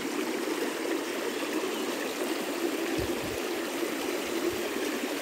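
Mountain stream flowing steadily, an even rush of water, with a couple of soft low bumps about three seconds in.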